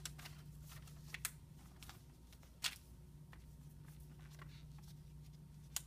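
Faint crinkling and small clicks of a transparent film dressing and its paper backing being handled in gloved hands, with sharper ticks about a second in, about two and a half seconds in and near the end, over a steady low hum.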